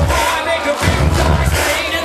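Loud club dance music with a heavy bass line that drops out and returns about a second in. A crowd is shouting and singing along.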